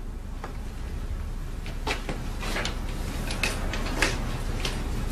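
Metal parts of a working model of an ancient Roman cheiroballistra (repeating hand catapult) being worked by hand: a handful of sharp, irregularly spaced clicks and clacks over a low steady hum.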